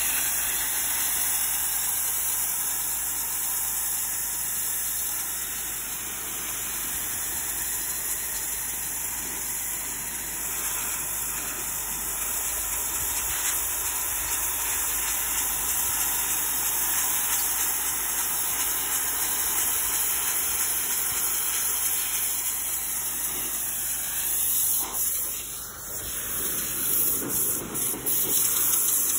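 Pressure washer wand blasting high-pressure water onto brick steps: a steady hissing spray. It briefly drops and turns uneven about four-fifths of the way through.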